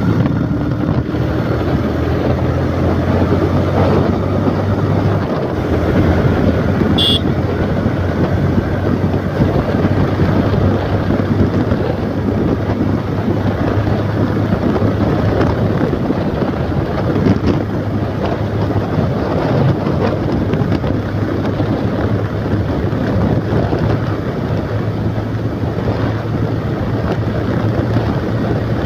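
Wind buffeting the microphone on a moving motorcycle, over the steady hum of its engine at cruising speed.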